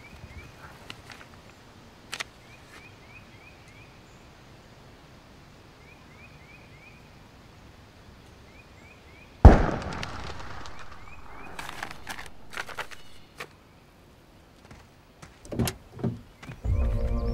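Quiet outdoor ambience with a small bird giving short runs of quick rising chirps. About halfway through, a sudden loud impact trails off into a few seconds of rushing noise. A few clicks and knocks follow, and music begins near the end.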